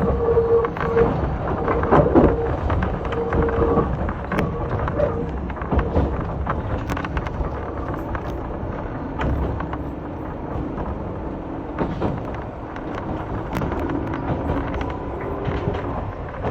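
Gakunan Railway 7000-series electric railcar running along the line: a steady low rumble of wheels on rail with repeated sharp clicks, and a humming tone that comes and goes in the first few seconds.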